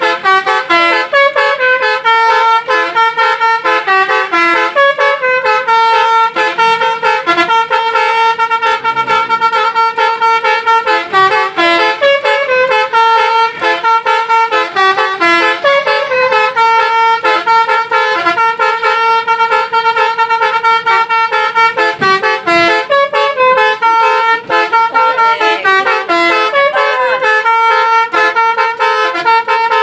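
Telolet bus horn playing a tune: a held horn note runs continuously under quick runs of shorter notes stepping up and down.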